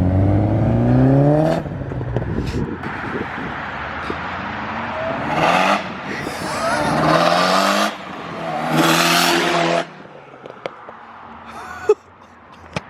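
Turbocharged Mitsubishi Evo 8 four-cylinder engine revving with rising pitch, cutting off about a second and a half in, then pulling hard in three loud bursts with a rushing hiss from the opened screamer pipe, before dropping much quieter near the end.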